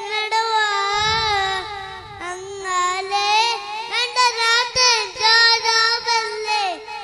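A young boy singing a Malayalam song solo into a handheld microphone, his high child's voice holding long, wavering notes.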